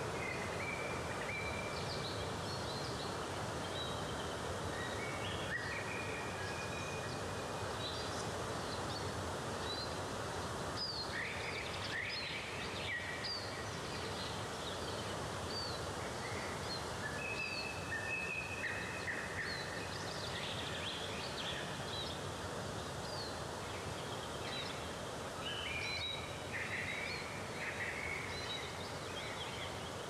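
Steady rushing of a waterfall, with small birds chirping and trilling over it, busiest about a dozen seconds in, again around twenty seconds in and near the end.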